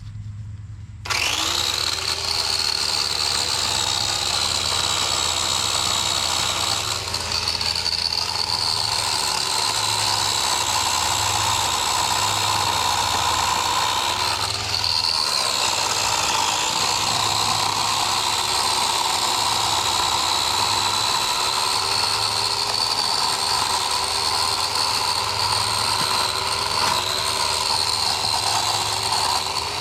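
A small Works chainsaw starts up about a second in and runs steadily with a high motor whine, its pitch sagging briefly a few times as the chain is put to the branches.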